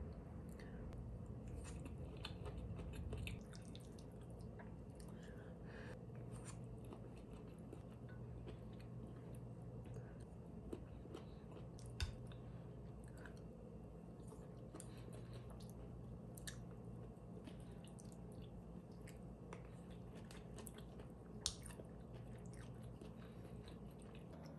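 Close-up eating sounds: soft chewing of tomato-and-egg stir-fry and small clicks and scrapes of a wooden spoon on a ceramic plate, with a sharper clink about halfway through and another near the end. A low steady room hum runs underneath.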